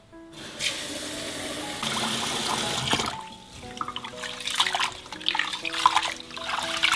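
Kitchen tap running into a rice cooker's inner pot for a couple of seconds, then stopping. Hands then swish and scrub rice in the water with irregular splashing as the rice is washed.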